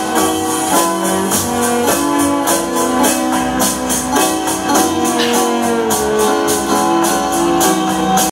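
Instrumental music playing from a vinyl record of trumpet tunes: a lead melody of held notes over a tambourine and a steady beat.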